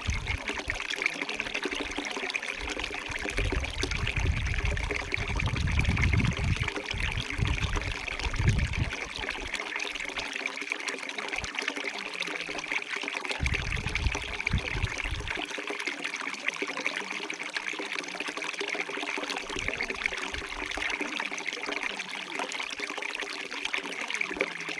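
Water trickling and running steadily in a small stream. Low rumbles come and go in two stretches in the first part.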